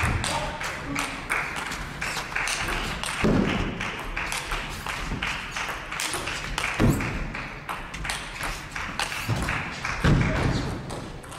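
Table tennis rally: the ball clicking off bats and table in quick succession, with a few heavier thumps along the way.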